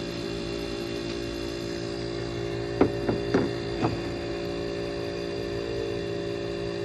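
1970s Carrier 5200 BTU window air conditioner running with a steady electrical hum: its reciprocating compressor is cooling while the fan motor, dry after decades unused, has not yet started turning. A few sharp knocks about three to four seconds in.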